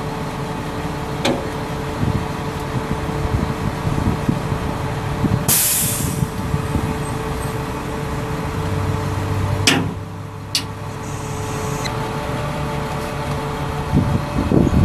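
Service truck's hydraulic end-gate liftgate lowering its steel platform to the ground, over the steady hum of the truck's Caterpillar 3126 diesel running. There is a short hiss a little over five seconds in, and sharp clanks near ten seconds.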